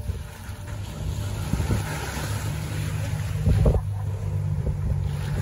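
Wind on the microphone and choppy waves washing up the sand, over a steady low motor hum, with a louder knock about three and a half seconds in.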